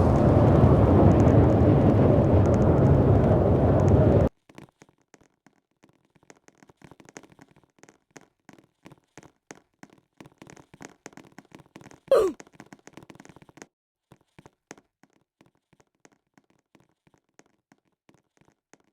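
Strong wind buffeting the microphone, cutting off suddenly after about four seconds. Then only faint scattered clicks remain, with one short falling tone about twelve seconds in.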